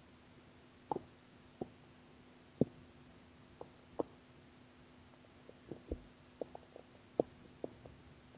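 Human stomach gurgling on an empty stomach: a dozen or so short, irregular pops and gurgles over a faint steady hum.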